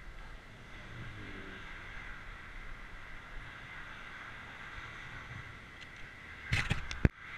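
Steady road noise of a bicycle ride along a cycle path next to a busy main road: tyre and traffic hiss. Near the end a short clatter of rattling clicks ends in one sharp, loud click.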